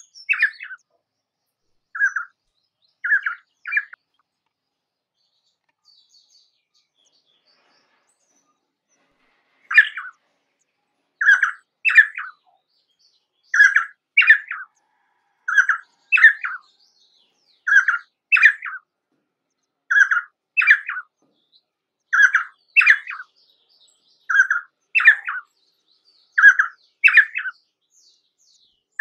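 Painted spurfowl calling: short, sharp notes, mostly in pairs, repeated about every two seconds. A few notes come at the start, then a pause of about six seconds, then the series runs steadily.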